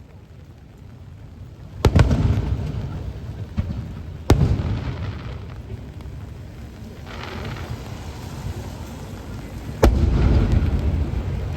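Aerial firework shells bursting: three sharp bangs, about two, four and ten seconds in, each followed by a low rolling rumble that dies away.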